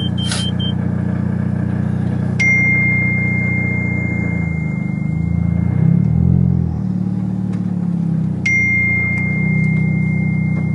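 A vehicle's engine hums steadily, its pitch dipping and rising near the middle. A short beep sounds at the start. Two clear bell-like dings follow, each starting with a click, one about two and a half seconds in and one about eight and a half seconds in, and each rings on for several seconds.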